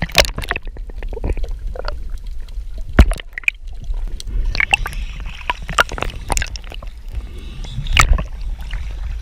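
Sea water splashing and sloshing, with irregular sharp knocks, the loudest about three seconds in, over a steady low rumble.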